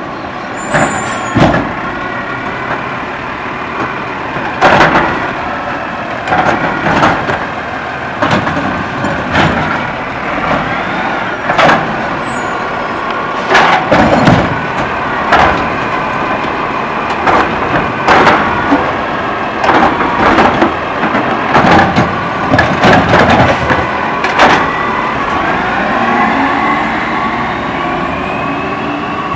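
Autocar ACX garbage truck's engine running while its DaDee Scorpion automated side-loader arm picks up and dumps trash carts, with many sharp bangs and clatters of the carts being shaken against the hopper. Near the end the engine revs up with a rising whine as the truck pulls away.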